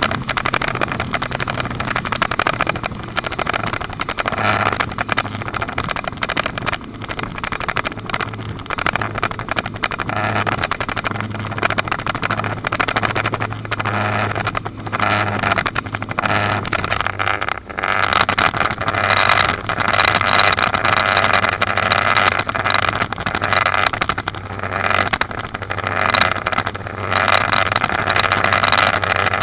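Speedboats running fast over open water: a steady low engine drone under a loud rush of wind and water, which grows somewhat louder about two-thirds of the way through.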